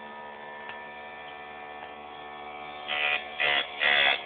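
Electric motor of a ZS-180 saw-chain sharpening machine running with a steady hum. From about three seconds in come four short, louder bursts.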